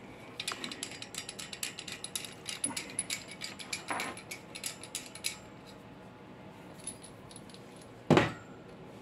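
Small metal parts clinking and rattling as a coaxial cable with its connector and a finned dummy load are handled: a quick, uneven run of light clicks for about five seconds. Then a pause, and one louder knock near the end.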